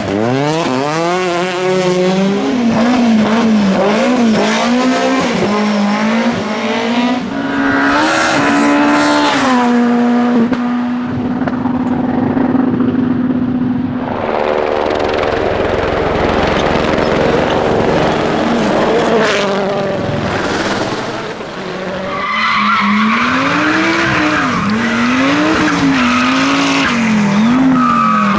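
Rally cars driven flat out, one after another: engines revving up and dropping back through gear changes and lifts, with one note held steady for a few seconds near the middle. In the second half there is a stretch of rushing noise with the engine fainter, before another car comes in revving hard.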